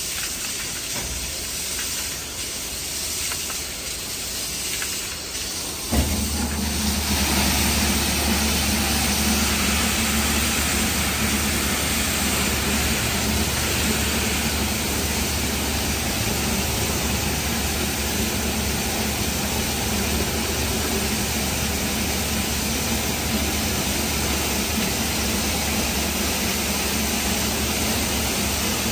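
Christ Genius Vitesse automatic car wash running: water spray hissing, then about six seconds in a pump motor starts with a steady low hum and the spraying becomes louder and steady.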